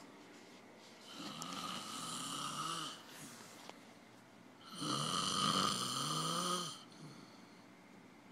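A man in a heavy, drunken sleep snoring: two long snores of about two seconds each, with a quiet pause between them.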